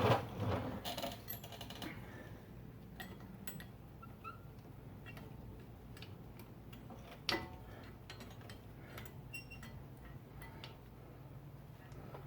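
Scattered small metallic clicks and ticks of front brake caliper hardware being handled and fitted: the pad retaining spring and pins. There is a louder knock at the start and another about seven seconds in.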